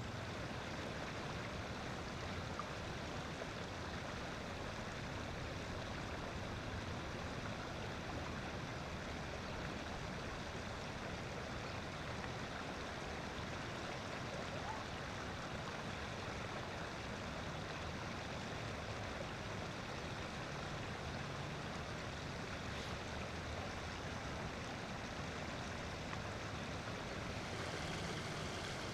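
Steady, even rushing outdoor noise with no distinct events, holding at one level throughout.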